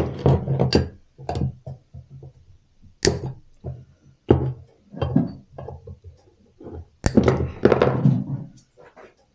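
Metal hand tools knocking and clinking as a homemade wire hose-clamp tool and pliers twist a wire clamp tight around a hose, with a burst of clatter about seven seconds in as the tools are set down on the workbench.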